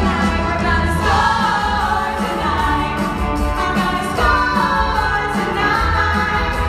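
A large chorus of women singing together over instrumental accompaniment with a steady low beat.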